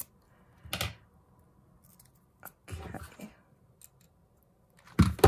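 Cardstock and a mini hot glue gun being handled: three short crinkly, rustling bursts, the loudest near the end.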